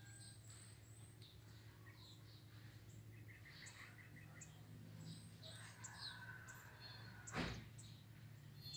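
Faint birds chirping and twittering in short high calls throughout, over a steady low hum, with a single sharp knock about seven and a half seconds in.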